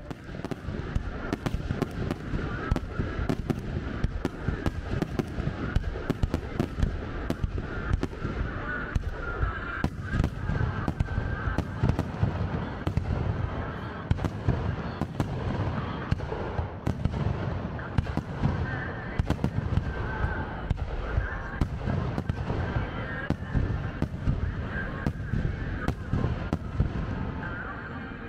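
Fireworks display: a dense, unbroken barrage of bangs and crackles, several a second, over a deep rumble of booming shells.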